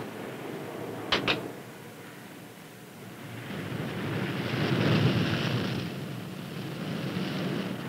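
Two sharp clacks about a second in as the 20 mm deck gun is worked, then the rush of heavy seas breaking over a submarine's hull, swelling about five seconds in.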